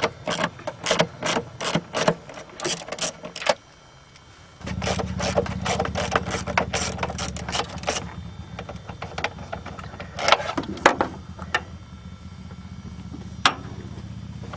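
Ratchet with a 10mm socket and extension clicking in quick, even strokes, about three a second, loosening the intake hose clamp at the throttle body. The clicking pauses briefly, then resumes over a steady low hum, thinning to a few single clicks near the end.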